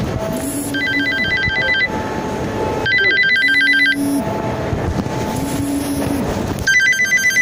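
Phone ringing with an electronic trilling ringtone: three rapid warbling bursts of about a second each, a few seconds apart, over steady background noise.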